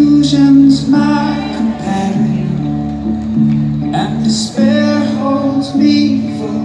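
Live band music heard from the audience: held keyboard chords that change about once a second, with guitar and singing.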